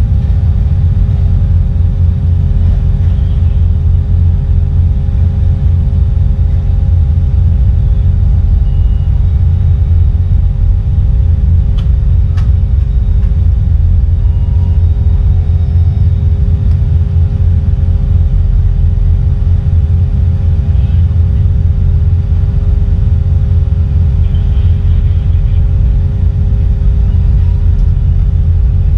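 Ferry's diesel engines running with a steady low rumble and a constant hum, heard from the deck while the ship comes alongside the wharf.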